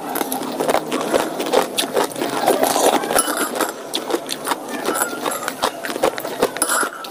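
Close-miked eating sounds: chewing with rapid, irregular wet clicks and smacks of the mouth.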